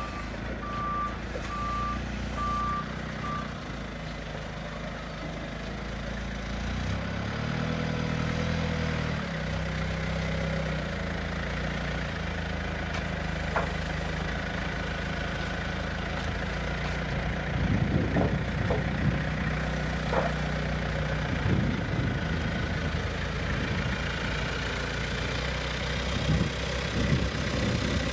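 Hyster forklift engine running steadily, its reverse alarm beeping for the first three seconds. The engine revs up and settles back about a quarter of the way in, and a few clanks come near the end.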